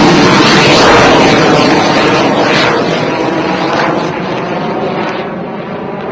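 Jet aircraft in flight: a loud, rushing engine noise that slowly fades, its high end dropping away toward the end.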